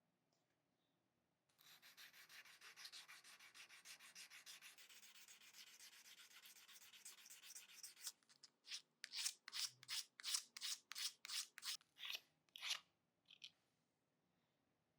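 Hand sanding of a pocket knife's metal parts with sandpaper, in fast back-and-forth strokes. About eight seconds in these give way to slower, louder, separate strokes, about three a second, which stop about thirteen seconds in.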